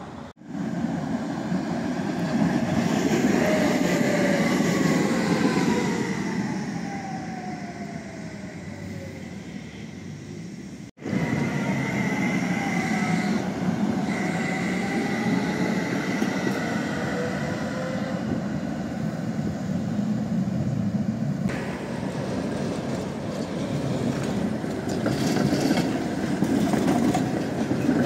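Trams passing close by on street track, a rumble of steel wheels on rail with a whine from the electric drive. The whine glides down in pitch, and after an abrupt cut about eleven seconds in a second tram's whine dips and then rises again.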